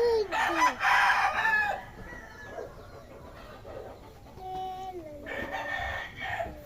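A rooster crowing, loudest about a second in, with a second, weaker crow near the end.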